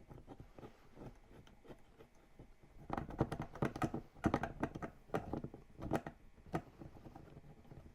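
A quick run of light clicks and knocks, thickest from about three seconds in to just past six seconds, as small 3D printer parts are handled and fitted by hand.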